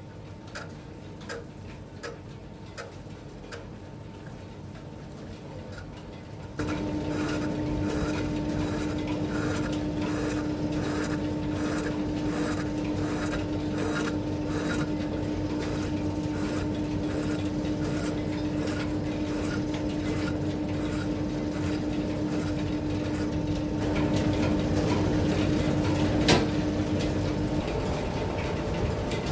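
Metal-turning lathe running, boring out the brazed repair in a bearing bore, with a steady hum and a regular tick a little under twice a second. It gets markedly louder about six seconds in, and the hum stops near the end.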